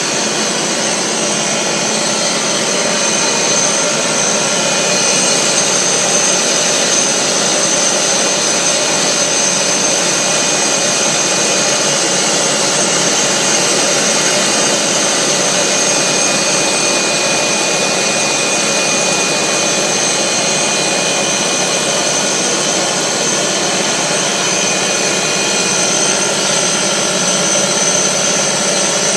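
Air bubble film machine running, a steady loud mechanical drone with a thin, constant high whine above it as the rollers carry the bubble wrap film through.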